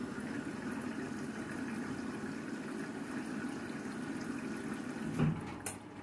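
Candy front-loading washing machine filling with water at the start of a cycle: a steady rush of inlet water running into the drum. A short knock about five seconds in and a brief click near the end.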